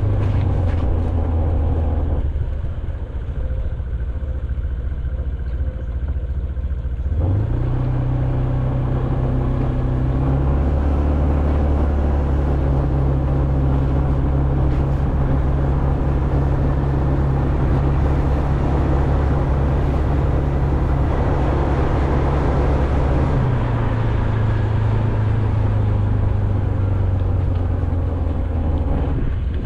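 A motor vehicle's engine running at steady speed with road noise. Its low drone steps up in pitch about a quarter of the way in and drops back near the end.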